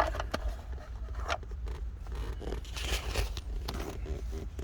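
Scattered small clicks and scrapes of hands and a tool working at the plastic wiring plug on a car's climate control unit, with a sharp click right at the start.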